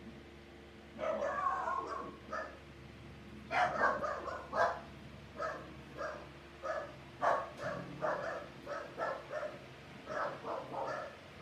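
A dog barking over and over, short barks coming about once or twice a second.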